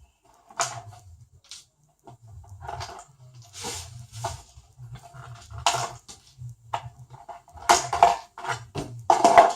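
Irregular clicks, taps and knocks of hard plastic parts as a 1/16 scale RC monster truck is handled on a work surface, with a louder cluster of knocks near the end.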